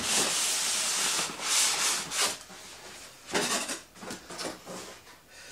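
Polystyrene foam packing sliding out of a cardboard box, scraping and rubbing against the cardboard: one long scrape at the start, then several shorter ones that grow fainter.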